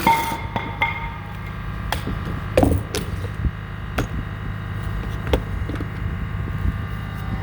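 A reciprocating saw cuts out just after the start, then a few sharp wooden knocks and cracks follow, the loudest about two and a half seconds in, over a low steady hum.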